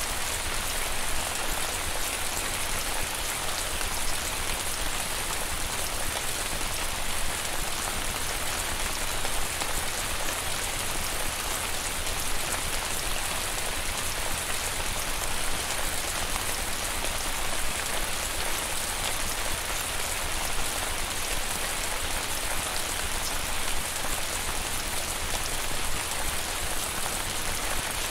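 Steady rain falling, a constant even hiss of drops with a low rumble underneath.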